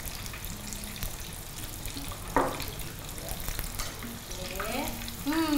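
Breaded chicken schnitzels shallow-frying in hot oil: a steady hiss with small pops, and a single sharp knock about two and a half seconds in.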